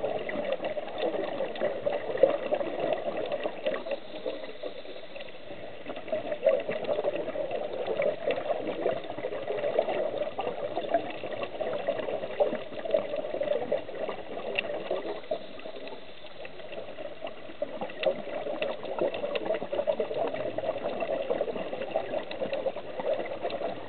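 Muffled underwater bubbling and water noise picked up through a camera housing, from a scuba diver's exhaled regulator bubbles. It is a steady crackly gurgle that eases off briefly twice.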